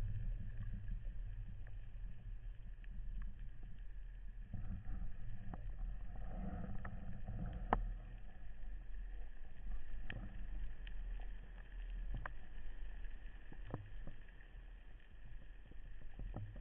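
Underwater ambience heard through a camera housing: a steady low rumble of water movement with scattered sharp clicks and ticks.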